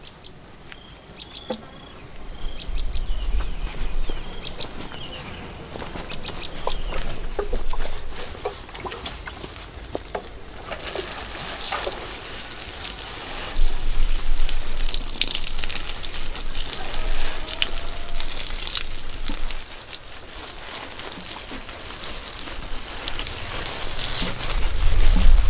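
Insects chirping in short, evenly repeated high pulses. About eleven seconds in, a dense crackling hiss with scattered clicks rises over them, and low rumbles come and go.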